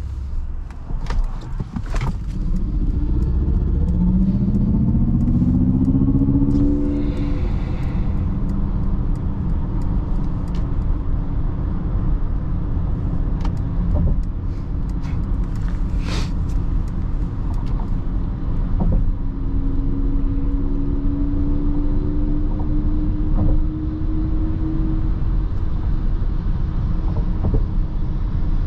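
Mercedes-Benz EQS 580 electric car under way at speed: a steady road and tyre rumble, with a tone that rises in pitch as the car accelerates, quickly about four seconds in and again, more slowly, from about twenty seconds in. A few sharp clicks stand out.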